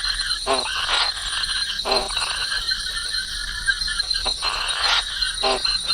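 Wild outdoor ambience: a steady high insect drone with a chirring band beneath it, broken three times by short calls that drop steeply in pitch.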